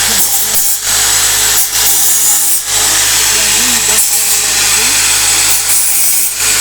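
Loud, harsh noise of a power tool working, dropping out briefly several times.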